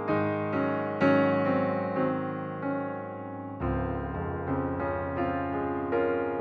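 Background piano music: notes and chords struck in a steady, unhurried run and left to ring and fade, with a deeper bass note coming in about halfway through.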